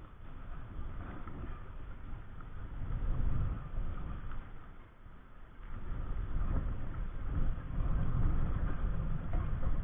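Wind buffeting the microphone in gusts as a low rumble. It swells about three seconds in, eases for a moment, then picks up again and stays strong toward the end.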